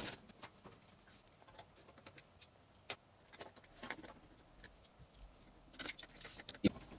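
Scattered light clicks and taps as an electric convector heater's sheet-metal casing and black plastic side end cap are fitted back on, with a denser run of clicks near the end as a screwdriver works on the end cap.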